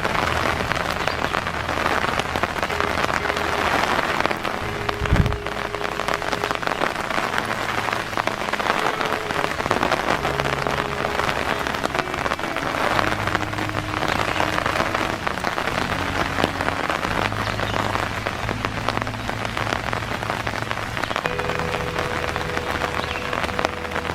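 Steady rain falling, a continuous dense hiss, with a single low thump about five seconds in.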